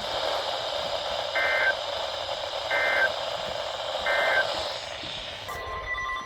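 Emergency Alert System end-of-message code: three short warbling digital data bursts about a second and a half apart, over a steady hiss, marking the close of a severe thunderstorm warning. Near the end a different steady electronic tone begins.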